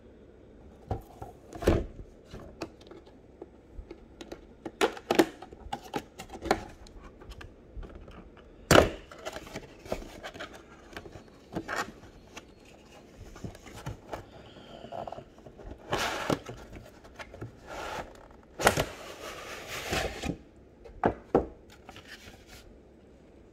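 Cardboard window box of a diecast model car being handled and opened by hand: scattered knocks and clicks of cardboard and clear plastic with rustling and scraping between them, and a longer scraping rush toward the end.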